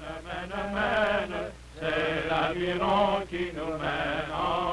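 Men's voices singing a French-Canadian voyageur song in long, wavering sung phrases, with two short breaths between them.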